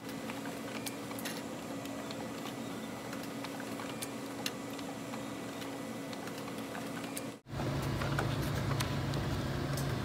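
A printer running as it prints sheets: a steady mechanical hum with scattered small clicks. About seven and a half seconds in the sound drops out for an instant, and a louder, lower hum carries on.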